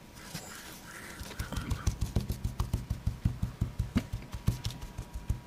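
Plastic toy dinosaur walked along the base of a nativity-scene display, its feet tapping: a quick run of dull knocks, about four or five a second, starting about a second in.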